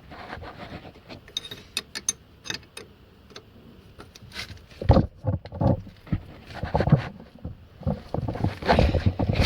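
Spanner tightening a brake pipe fitting on a car's front brake: irregular metallic clicks and knocks, louder around five seconds in and again near the end.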